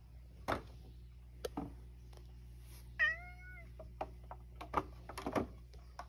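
A domestic cat meows once, a short call about halfway through that rises slightly and then holds level. It is a hungry cat asking for its dinner. Several sharp knocks and taps come before and after it.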